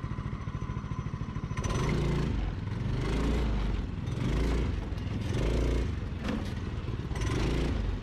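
The mini buggy's 196cc single-cylinder OHV engine idles with an even pulse. About a second and a half in it is throttled up, and the revs rise and fall in repeated surges as the buggy drives over rough dirt.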